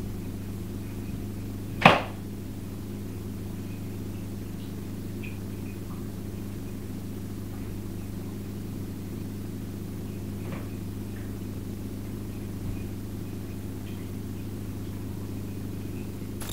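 A single sharp knock about two seconds in, over a steady low hum, with a few faint ticks later on.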